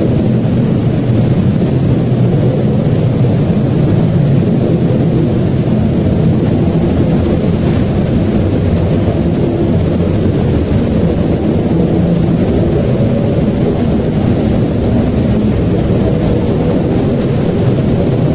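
A loud, continuous low rumble with faint droning tones beneath it, steady throughout.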